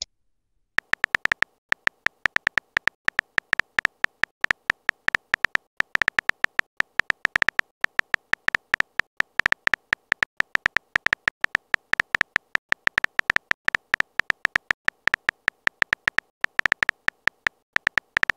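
Synthetic keyboard-tap sound effects of a texting-story chat app as a message is typed: a fast, uneven run of short clicks, several a second, starting just under a second in.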